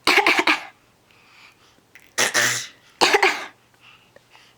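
A person fake coughing: three short, deliberate coughs, one at the start, one about two seconds in and another about three seconds in.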